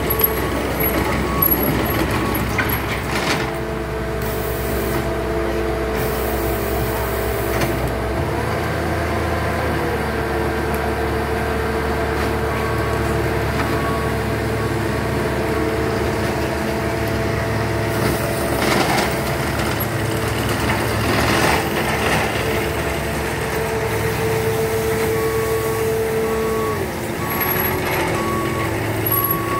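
Bobcat compact track loader's diesel engine running steadily, its note dropping near the end, with a reversing alarm beeping near the start and again near the end. A few short knocks sound over it.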